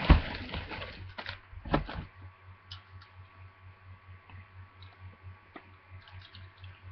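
A cardboard box and toy packaging being handled during unpacking. There is a knock at the start and another just under two seconds in, with rustling between them, then only faint handling clicks over a low pulsing hum.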